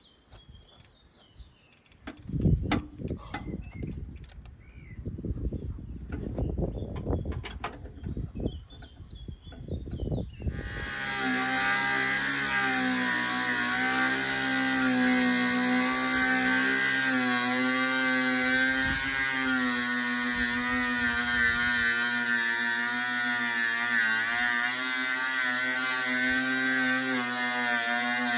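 Metal clattering and knocking as parts are handled. About ten seconds in, an electric angle grinder starts up suddenly and runs loudly and steadily with a high whine, its pitch wavering slightly.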